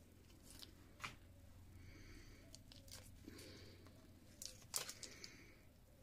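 Faint hand-handling of small craft parts: a few sharp little clicks and light rustling, with the loudest cluster of clicks about three quarters of the way through.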